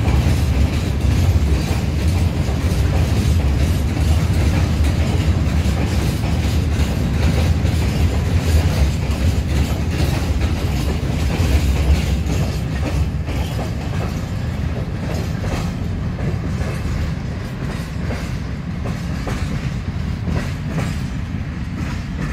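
Empty open-top freight wagons rolling past, their wheels rumbling and clacking steadily over the rail joints.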